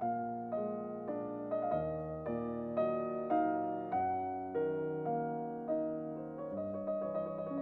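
Background piano music: slow notes struck about twice a second, each one dying away before the next.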